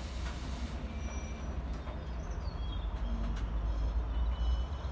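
Freight train of open box wagons rolling past on the far track: a steady low rumble of wheels and wagons, with a few brief faint high-pitched squeaks.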